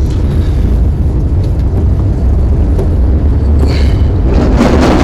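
Steady low rumble of a vehicle on the move, its road and engine noise, with a brief hissing swell near the end.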